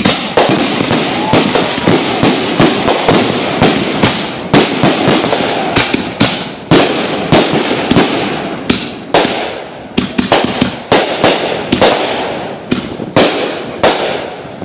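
Fireworks going off: a rapid run of sharp bangs from aerial bursts, about three a second, with a steady hiss and crackle between them.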